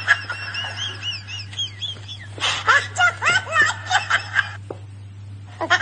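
A person laughing. It starts with a quick run of high, squeaky giggles for about two seconds, then snickering bursts of laughter from about two and a half seconds in and again at the very end, over a steady low hum.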